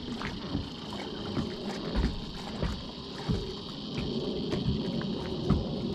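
A steady high-pitched chorus of insects buzzing, with scattered knocks and thumps and a low rumble underneath.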